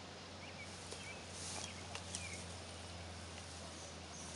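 Quiet lakeside evening ambience: a few faint, short chirping calls and a couple of small clicks over a steady low hum and hiss.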